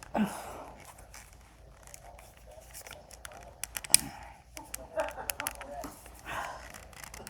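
Hard plastic arm of a Bop It toy figure creaking and clicking as it is twisted and wrenched to work it loose, with one sharp snap about four seconds in.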